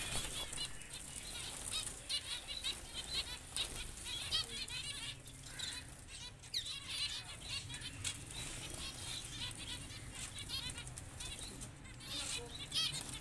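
A flock of caged zebra finches calling: a dense, continuous chatter of short, overlapping chirps, with wings fluttering among them.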